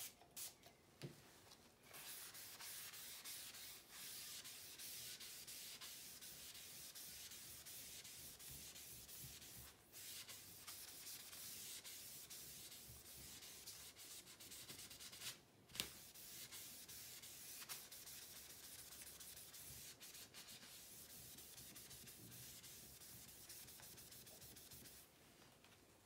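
A hand rubbing back and forth across a sheet of inked synthetic paper, a steady dry scrubbing sound. It starts about two seconds in, pauses briefly a few times with a single click midway, and stops just before the end.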